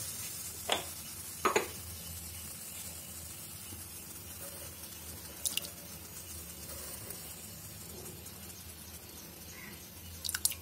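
A ladle stirring a thin, watery mix of rice, moong dal and water in an aluminium pressure cooker: soft sloshing, with a few light clicks of the ladle against the pot, near the start, again about five and a half seconds in, and twice near the end.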